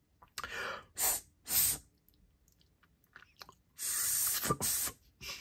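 Breathy puffs of air blown through a small machined metal pocket whistle: three short blows, then a longer one about four seconds in. They give a rush of air but no clear whistle tone.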